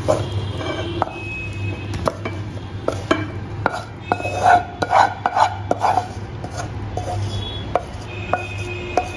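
Wooden spatula scraping and knocking against a non-stick pan as sticky jaggery-coated makhana (fox nuts) are pushed out onto a plate, with a run of louder knocks about halfway through.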